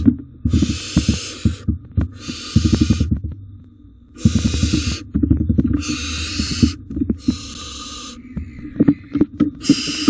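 Barn owl nestlings giving their long, harsh hissing begging calls, about six of them, each about a second long, with short gaps between. Under them, close knocks and scuffling from the owls moving on the wooden nest box floor.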